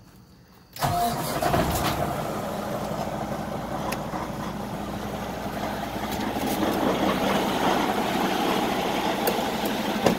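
Semi truck's diesel engine starting about a second in, then idling steadily, heard from inside the cab.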